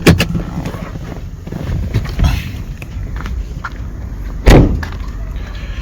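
A few knocks and thumps on a car, with handling noise between them: two sharp knocks at the start and one loud thump about four and a half seconds in.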